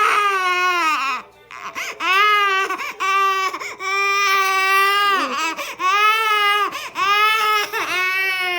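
A seven-month-old baby crying hard: a string of long, high wails of about a second each, broken by short gasping breaths. The crying is typical of the baby's fright at the beeping of its bumblebee head-protection cushion.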